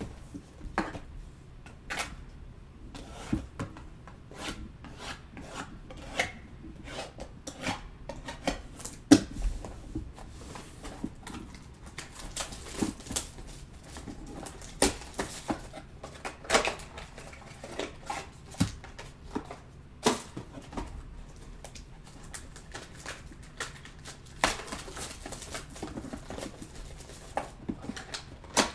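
Cardboard trading-card boxes and packs handled on a tabletop: a run of irregular taps and knocks with bursts of rustling, the loudest knock about nine seconds in.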